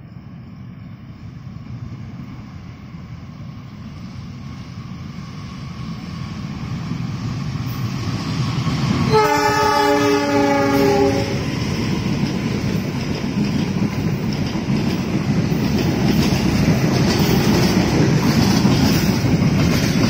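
KAI diesel-hauled passenger train approaching and passing: the locomotive's rumble builds, it sounds a multi-tone horn for about two seconds about nine seconds in, then the coaches roll by with a loud steady rumble and wheel clatter.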